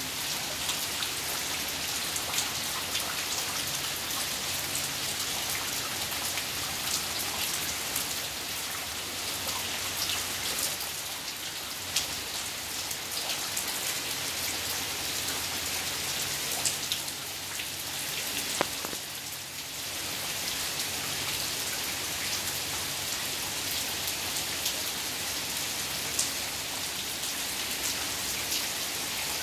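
Heavy rain pouring steadily, a dense hiss with the patter of many individual drops striking the ground and walls. It eases slightly for a moment about two-thirds of the way through, then returns to full strength.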